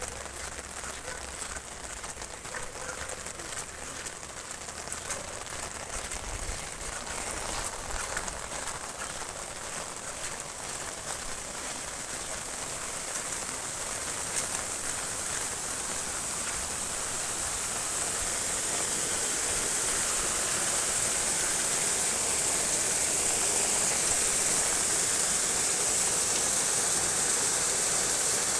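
Storm-swollen canal water rushing past in a steady hiss that grows gradually louder through the second half.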